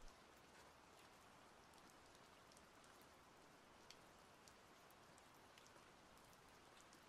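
Faint, steady rain ambience: a soft even hiss with scattered drop ticks.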